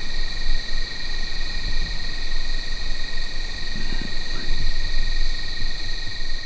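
Evening chorus of crickets or similar night insects: a steady high trilling with a thin, unbroken tone a little lower, over an uneven low rumble.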